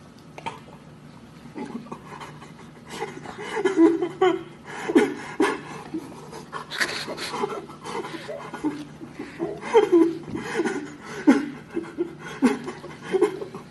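A person laughing breathlessly in short irregular bursts, with panting breaths between them.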